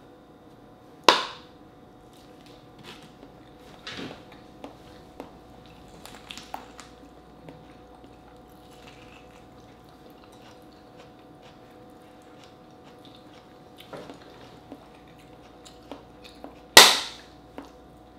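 Hard-boiled egg being peeled by hand, with small scattered clicks and crackles of the shell. Two sharp knocks, one about a second in and a louder one near the end.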